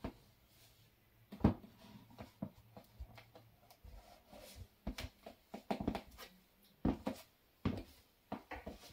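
Stiletto heels clicking and knocking on a hardwood floor as a pair of high-heeled pumps is slipped on and then walked in: a dozen or so sharp, irregular taps, some in quick pairs, most of them in the second half.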